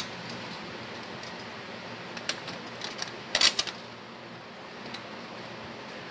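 Short metallic clicks and knocks from the chrome steel tubing and bolts of a pipe-frame salon chair being handled and fitted by hand, with a louder cluster of knocks a little past the middle, over steady background noise.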